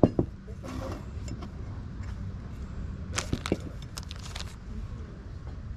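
A sharp knock, then a few seconds later a quick cluster of light clinks and taps: glass and ceramic items being picked up, handled and set down on a wooden table, over a steady low outdoor rumble.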